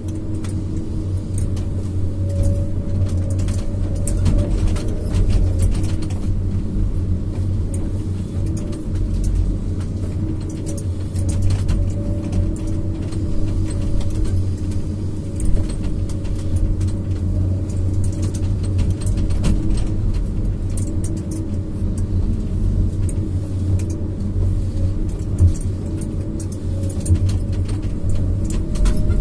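Cab of a PC200F excavator-based harvester: the diesel engine and hydraulics run steadily under load, a deep hum with a steady tone above it. Scattered knocks and rattles come as the 370e harvester head grips, feeds and delimbs stems.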